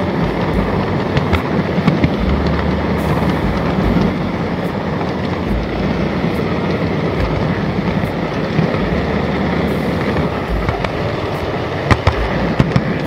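N gauge model train running on its track, heard from a camera riding on the rails just ahead of the C57 steam locomotive model: a steady rattling rumble of small wheels on rail, with scattered sharp clicks and a few stronger ones near the end.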